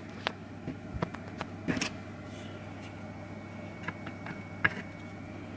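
Light handling noise: a few scattered clicks and taps as a small aluminium-cased switch-mode power supply module is moved about on a desk, over a faint steady hum.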